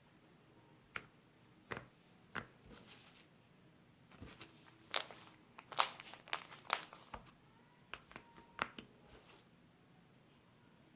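Slime being squeezed and worked by hand for ASMR, giving sharp clicks and crackles: a few scattered ones at first, then a quick run of them in the middle.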